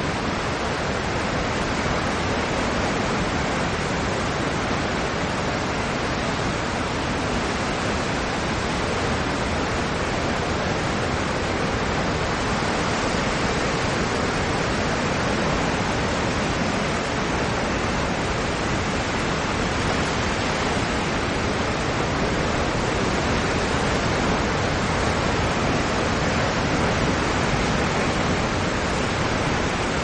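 Heavy ocean surf breaking over rocks: a loud, steady rush of churning white water with no distinct wave-by-wave surges.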